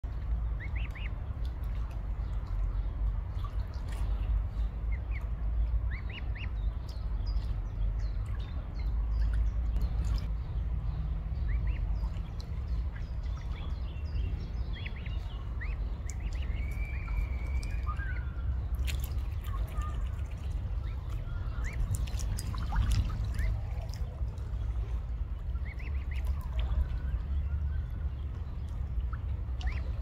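Mute swan cygnets giving scattered short, high peeps while they dabble and sip at the water's surface, with small splashes and drips, over a steady low rumble.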